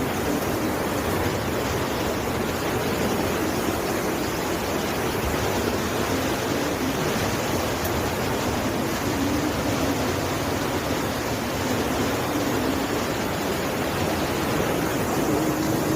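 River water rushing past in a steady, unbroken torrent.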